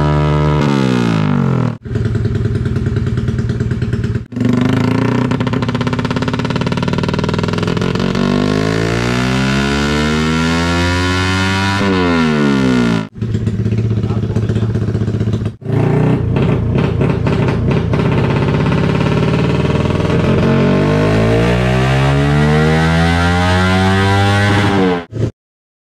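Modified Yamaha Y15ZR's single-cylinder four-stroke engine at full throttle on a motorcycle dyno through a loud aftermarket exhaust, its pitch climbing steadily through each pull and falling away when the throttle closes. The sound drops out abruptly and briefly several times.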